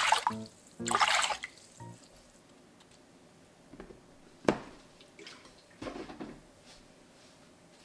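Water pouring into a stainless steel pan in two short gushes, then a single sharp splash about four and a half seconds in as a sheet of dried kelp drops into the water, and a smaller splash a little later.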